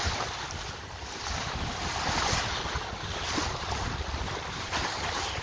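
Water rushing and splashing along the hull of a sailboat under sail, swelling a little about two seconds in, with wind buffeting the microphone in a low rumble.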